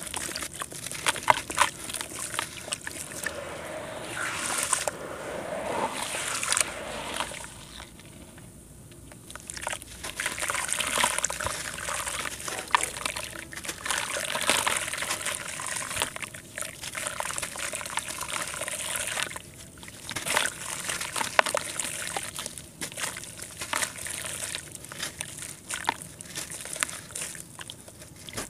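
Hands squeezing and crumbling lumps of wet, gritty red dirt in a tub of muddy water: gritty crackling mixed with sloshing and dribbling water. There is a brief lull about eight seconds in.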